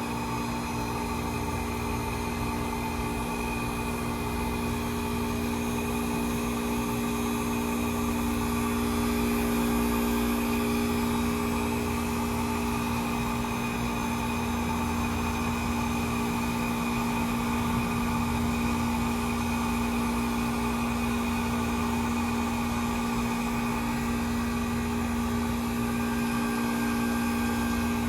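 Carrier Comfort 10 heat pump outdoor unit running steadily through a defrost cycle: an even machine hum with a few constant tones over a low rumble.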